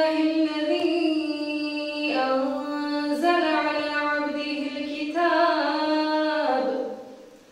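High, child-like or female voices singing an unaccompanied ilahija, a Bosnian Islamic devotional hymn, in long held notes. The phrase changes about two and five seconds in, and the singing fades out near the end.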